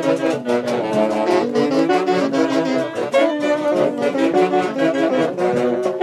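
Band music led by saxophones and brass, playing a lively melody over a steady quick beat.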